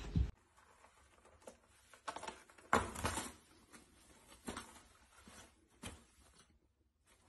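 A cat pawing and clawing at a hanging roll of toilet paper, making irregular papery scratches and rustles. The loudest comes about three seconds in.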